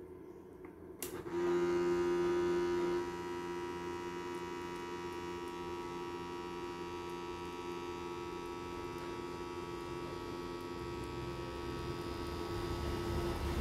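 Philips SureSigns VS3 monitor's blood-pressure pump inflating the arm cuff: a click about a second in, then a steady motor hum, loudest for the first couple of seconds, running on while the cuff pressure climbs.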